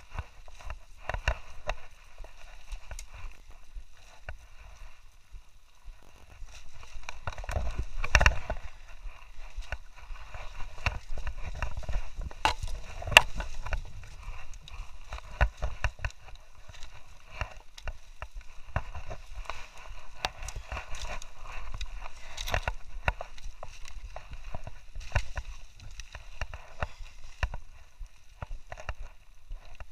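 Irregular footsteps crunching and scuffing on dry, burnt ground littered with charred twigs, mixed with knocks from the camera being carried, over a faint steady high hiss.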